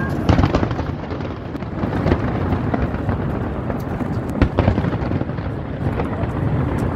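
Aerial firework shells bursting in a continuous rumble of overlapping booms, with sharper bangs standing out about a third of a second in, around two seconds in, and a close pair near four and a half seconds in.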